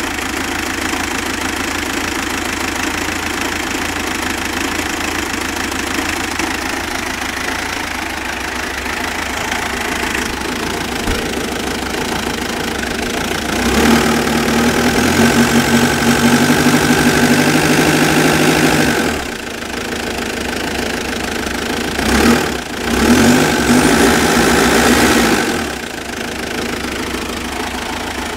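Mitsubishi Pajero engine idling roughly. About halfway through it is revved and held at higher rpm for several seconds, then drops back; it is revved again briefly near the end and returns to a rough idle. The owner finds it rough at idle and smoother with a bit of rpm, apart from an occasional hiccup.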